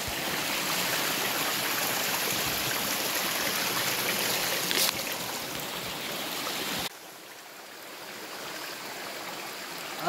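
Shallow rocky forest stream flowing and trickling over stones, a steady rush of water that drops abruptly to a softer flow about seven seconds in.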